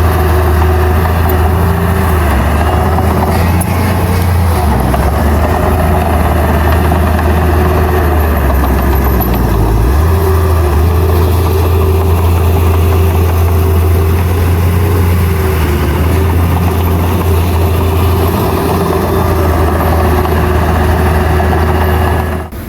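Heavy diesel engine of earthmoving machinery running steadily with a loud low drone, its pitch shifting slightly a few times. It cuts off abruptly just before the end.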